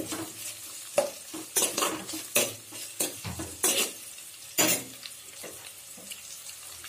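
Sliced onions and green chillies sizzling in hot oil in a kadai while a metal spoon stirs them, scraping the pan about half a dozen times. The scraping stops about five seconds in and the sizzle carries on.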